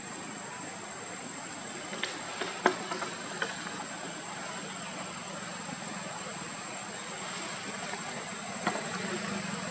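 Steady outdoor ambience: a constant high insect drone over a hiss of background noise, with a few sharp clicks about two to three and a half seconds in and once more near the end.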